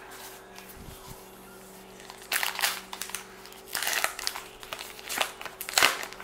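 Crinkling and tearing of a baseball card pack's wrapper as it is ripped open by hand, in a run of bursts starting about two seconds in.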